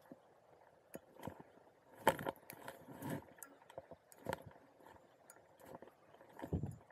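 Irregular footsteps and scuffs on concrete bank-protection blocks, with small items of gear jangling.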